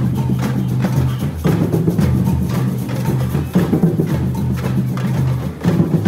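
A marching band playing in the street: drums strike a steady beat under held low notes.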